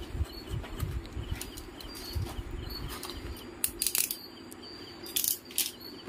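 Utility knife blade scraping and cutting through the tape seal on a cardboard motherboard box, with the box rustling as it is handled. A few sharp scratchy cuts come in the second half.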